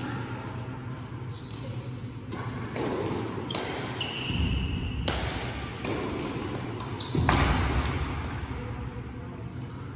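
Badminton rally: rackets strike the shuttlecock in a series of sharp hits, mixed with short high squeaks of shoes on the court floor.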